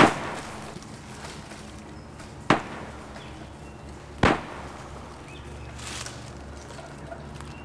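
Three gunshots, sharp single cracks spaced about two seconds apart, each dying away quickly.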